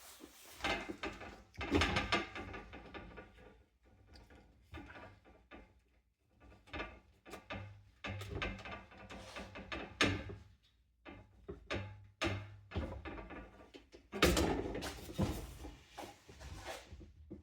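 Box fan parts being handled and worked on: irregular knocks, clatter and scrapes, with a cluster of louder clatter near the end.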